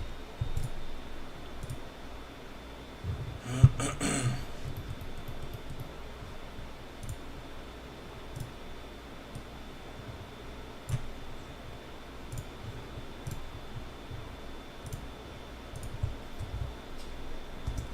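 Computer mouse clicks and a few keyboard key presses, scattered and irregular, with a short busier cluster of clicks and handling noise about four seconds in.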